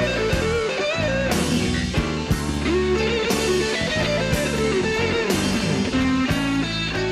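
Blues-rock music: a lead guitar playing bending notes over bass and drums.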